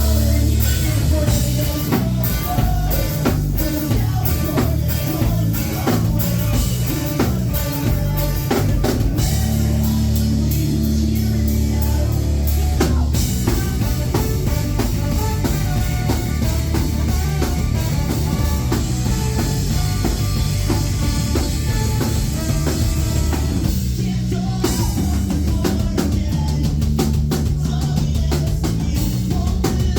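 Live rock band playing a song, loud and bass-heavy, with a drum kit keeping a steady beat.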